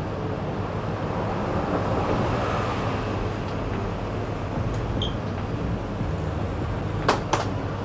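Steady low hum of a convenience store's glass-door drink coolers, with two sharp clacks close together near the end as a cooler door and bottles are handled.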